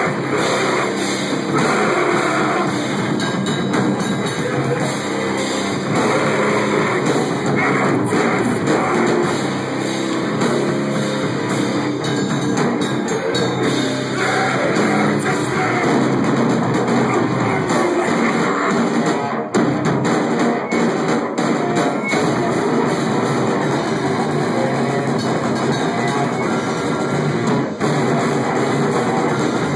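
Heavy metal band playing live: electric guitar and drum kit, loud and continuous.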